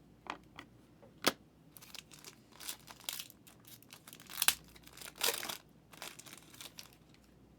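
Trading cards and their foil pack wrapping being handled: a few sharp clicks, then short bursts of rustling and crinkling.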